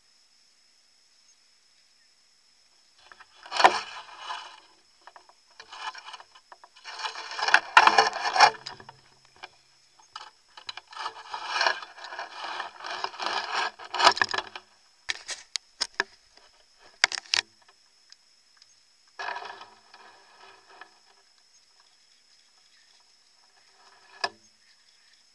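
Runners' footsteps scuffing and swishing through rough moorland grass as they run past close by, in several irregular clusters of rustling footfalls with short gaps between.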